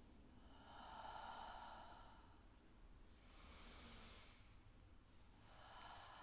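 A woman's slow, deep breathing, soft and unhurried, with breaths in and out each lasting about two seconds: one about a second in, a higher, hissier one around four seconds, and another starting near the end.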